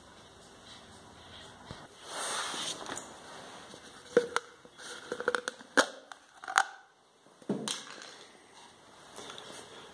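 Thin clear plastic cups handled by hand, crinkling and clicking in a scattered run of sharp clicks over a few seconds, after a brief rush of noise.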